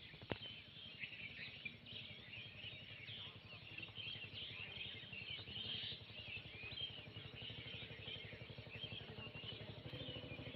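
Many small birds chirping and twittering without a break. A low motor drone grows louder near the end.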